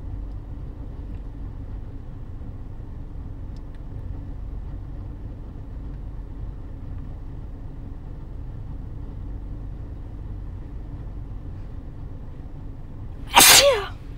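A woman's single loud, uncovered sneeze near the end, a sharp burst with a falling voiced tail. It comes after a long stretch of steady low background rumble.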